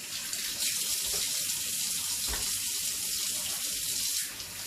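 Kitchen tap running into a sink while hands are washed under it, a steady rush of water that eases slightly near the end.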